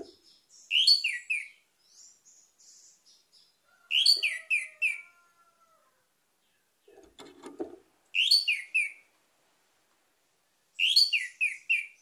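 Orange-headed thrush singing: four short, loud phrases of quick whistled notes that step down in pitch, about three to four seconds apart, with softer high notes between the first two.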